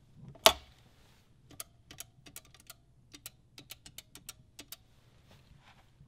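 A handset lifted off the hook of a stainless steel push-button wall phone with one sharp clack, then about a dozen keypad buttons pressed in quick succession as a number is dialled. A faint steady hum runs underneath.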